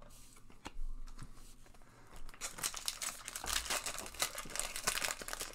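Red foil wrapper of a Tim Hortons hockey card pack crinkling and tearing as it is ripped open by hand. A few light crackles at first, then dense crinkling from about two seconds in.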